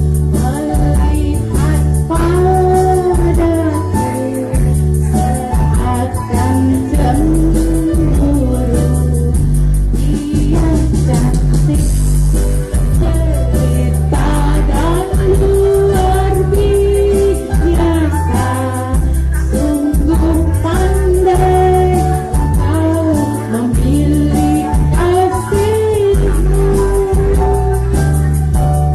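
A woman singing a melody into a microphone over karaoke backing music with a steady bass line.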